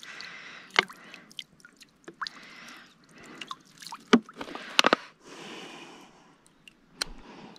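Water poured in short splashes from a plastic water bottle over hands and a knife blade to rinse off mud, with several sharp clicks and crinkles from the bottle and knife being handled.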